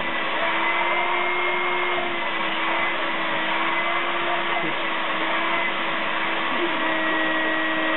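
Vacuum cleaner running steadily: a constant rushing motor noise with a steady humming whine over it.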